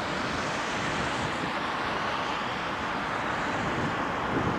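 Train rolling past: a steady rushing noise of wheels on rails, with no distinct engine note.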